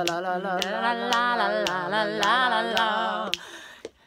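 A woman singing a capella in long wavering notes, with finger snaps keeping time about twice a second; the singing and snapping stop about three and a half seconds in.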